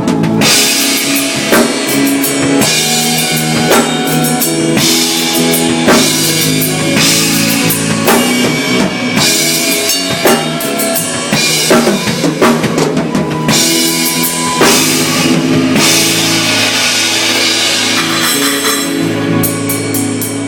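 A live band playing rock-style music: a drum kit keeps a steady beat with bass drum and cymbal hits over sustained pitched instruments.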